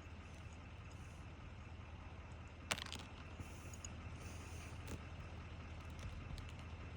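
Faint steady low rumble of outdoor background noise, with one sharp tap about three seconds in and a lighter one near five seconds.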